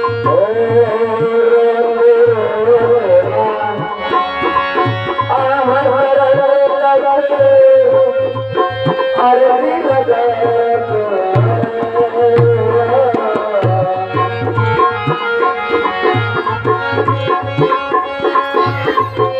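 Indian devotional music: a tabla plays a steady rhythm, its low bass drum pulsing regularly, under a continuous melody that glides and bends in pitch.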